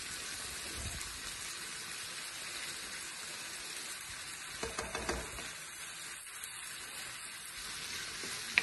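Shrimp and chermoula sizzling in a frying pan, stirred with a wooden spoon. There is a steady hiss throughout, a few spoon knocks against the pan about halfway through, and one sharp click at the very end.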